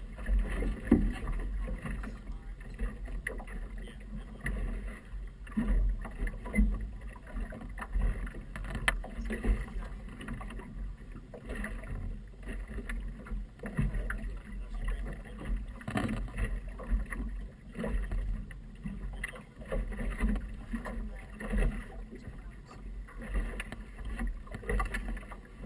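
Choppy river water slapping and splashing against the hull of a small motorboat: irregular knocks and splashes over a low rumble.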